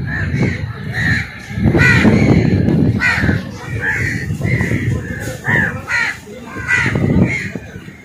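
A large flock of crows cawing, many harsh calls overlapping several times a second, over a steady low rumble.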